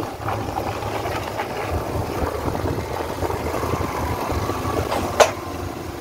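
Motorcycle engine running steadily while riding, with low road and wind rumble. A single sharp click sounds about five seconds in.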